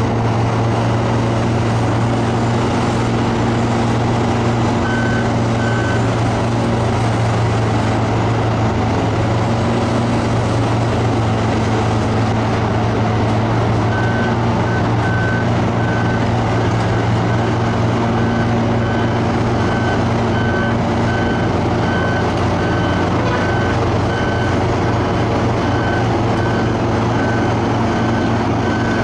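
Hitachi Zaxis 450 excavator's diesel engine running steadily, with a machine motion alarm beeping. The alarm beeps twice early in the clip, then keeps beeping at a steady pace, a little faster than once a second, from about halfway through.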